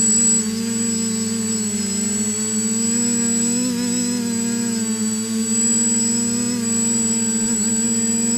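Electric motors and propellers of a TBS Discovery Pro quadcopter humming steadily, heard from its onboard camera, with small rises and dips in pitch as the throttle is adjusted. A constant high whine runs under the hum.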